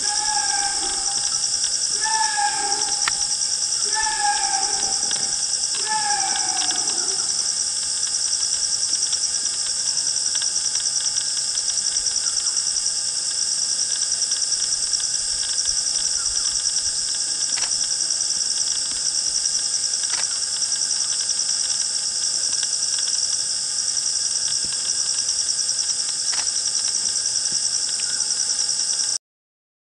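Steady high-pitched chorus of insects, with a clear call repeated four times about two seconds apart in the first few seconds. The sound cuts off suddenly just before the end.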